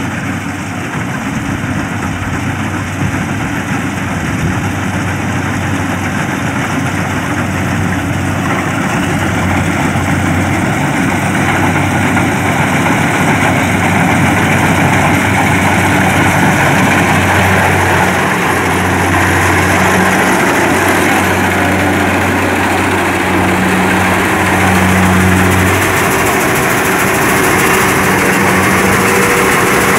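Kubota DC-70 rice combine harvester running steadily as it cuts and threshes rice, its diesel engine hum mixed with dense machinery noise. It grows louder through the first half.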